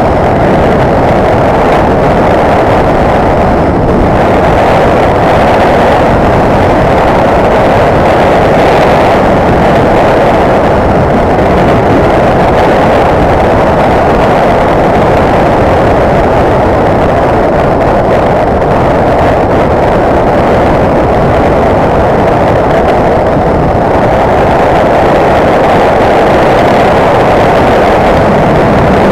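Motorcycle riding along a road: loud, steady rush of wind and engine noise that keeps the same pace throughout.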